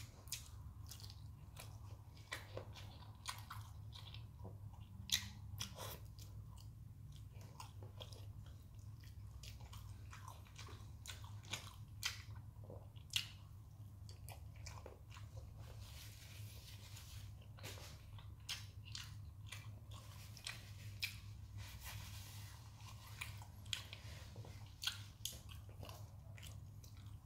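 Close mouth sounds of a man chewing a fried egg and licking his fingers: irregular soft clicks and smacks over a steady low hum.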